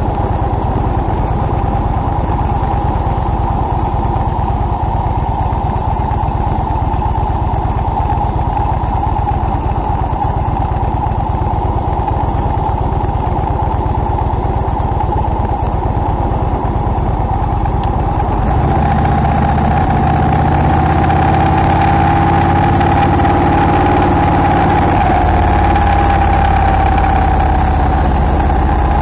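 Motorcycle engine running at road speed, with steady wind and road noise. About two-thirds of the way through it gets a little louder and the engine's note turns steadier and more clearly pitched.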